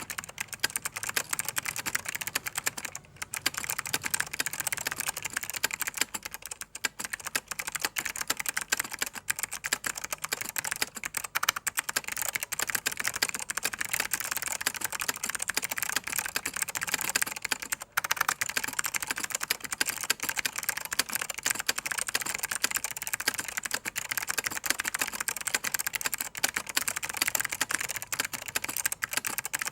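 Mechanical keyboard with clicky SKCM White Alps switches typed on rapidly and continuously, the keyboard resting on a towel.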